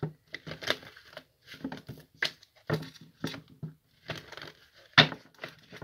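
A deck of tarot cards being shuffled by hand: irregular papery riffles and slaps, the sharpest about five seconds in.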